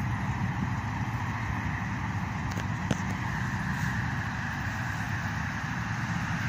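Steady outdoor background rumble with a hiss above it, unbroken and without any clear tone, and one faint tap a little under three seconds in.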